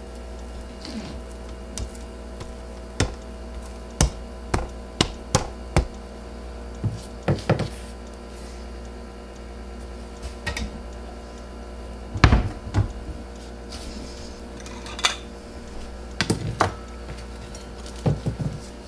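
Scattered light clicks and knocks, some in quick runs of three or four and the loudest about twelve seconds in, over a steady low hum.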